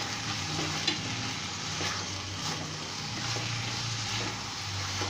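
Chicken Manchurian gravy with carrot and capsicum sizzling in a pan as it is stirred, with a few light taps of the spoon against the pan.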